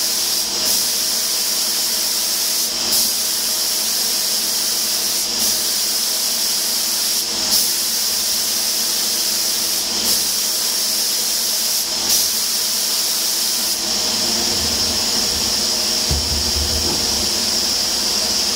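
Air spray gun with a cup hanging below it hissing steadily as it atomises paint, with a short break in the hiss every two seconds or so between passes along the panel. Near the end the passes stop and a few low bumps are heard.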